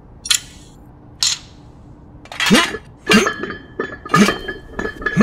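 Metal clanking and rattling from a gym weight-stack machine: two short metallic scrapes, then from about halfway a run of loud clanks as the machine is wrenched up and lifted.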